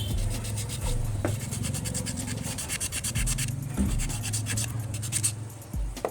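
Brush scrubbing rust off a car AC compressor part in quick back-and-forth strokes.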